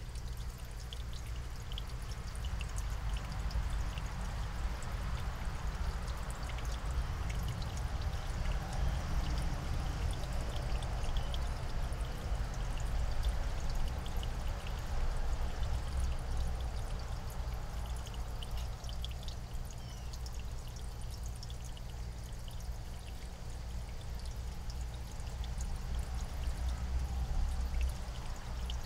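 Steady outdoor background noise: a low rumble with an even hiss, and faint, short high ticks scattered throughout.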